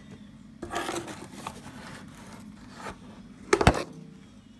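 Plastic Coffee-mate creamer tub being handled and its lid worked open: scraping and rubbing for about a second, then a sharp knock about three and a half seconds in.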